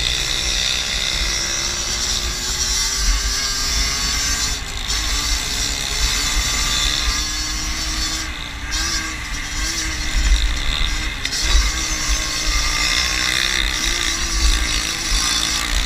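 Small 50cc moped engine running hard and fairly steadily as the bike is ridden along a dirt track, its pitch wavering slightly with throttle. Heavy wind rumble on the microphone underneath.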